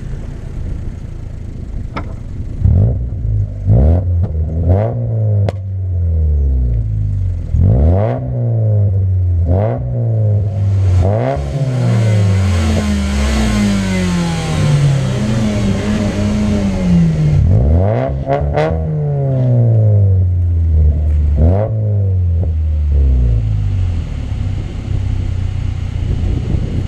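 Fiat Coupé 1.8-litre 16-valve four-cylinder engine under hard acceleration, its pitch rising steeply and dropping back again and again as it is revved through the gears and lifted off. A few short sharp cracks come between pulls, and the loudest, highest-revving stretch falls in the middle.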